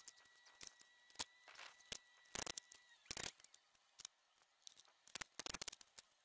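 Scattered light clicks and knocks of pine boards and tools being handled on a plywood panel, some coming in quick little clusters. A faint steady high tone runs under the first half and stops about three seconds in.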